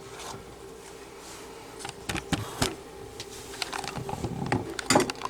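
Kitchen handling sounds from filling and rolling tortillas into a casserole dish: scattered light taps, clicks and scrapes starting about two seconds in, the loudest knock near the end, over a steady low hum.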